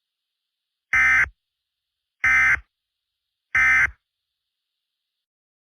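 Emergency Alert System end-of-message tones: three short, identical digital data bursts about a second apart. This is the SAME "NNNN" code that marks the end of an alert.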